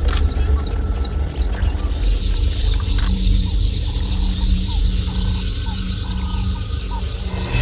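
Many birds chirping quickly and densely, with a low call repeating in short pulses about twice a second from about three seconds in.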